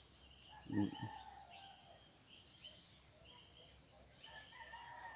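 Steady high-pitched chorus of insects, such as crickets, trilling in finely pulsing rhythm, with a brief vocal sound about a second in.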